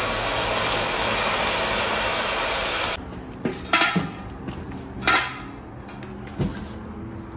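Angle grinder cutting steel, a steady harsh whine that cuts off abruptly about three seconds in. It is followed by about five sharp metal knocks, like hammer blows on a steel tube, some with a short ring.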